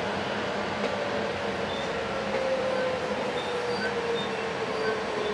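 Inside a VTA light rail car: the steady rumble of the moving train, with a motor whine falling slowly in pitch as it slows into a station.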